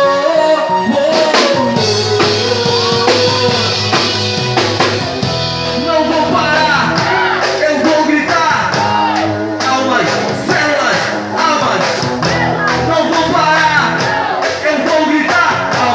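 Rock band music: drum kit, guitars and a melodic lead line, with a held sung note near the start.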